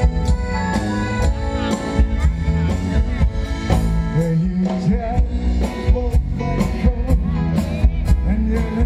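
Live band playing country-style music: drum kit keeping a steady beat under electric guitars, with a singer's voice on top.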